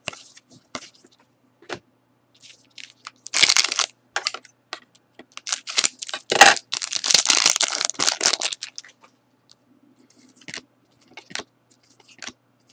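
Foil trading-card pack wrapper being ripped open and crinkled: one short loud rip, then a few seconds of crinkling and tearing. Light clicks and rustles of cards being handled come before and after.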